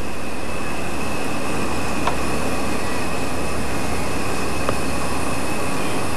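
Large mobile crane's diesel engine running steadily while lifting a heavy load, with a steady high whine over the rumble. Two faint sharp clicks, about two seconds in and near the end.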